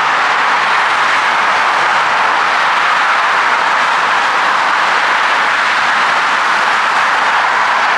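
Loud, steady wash of noise from dense multi-lane highway traffic, the tyres and engines of many passing vehicles blending into one unbroken rush.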